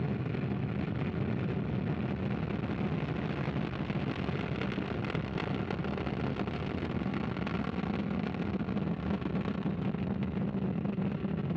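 Ariane 5 rocket climbing just after liftoff: the steady, low rumbling noise of its two solid rocket boosters and Vulcain main engine, with a fine crackle through it.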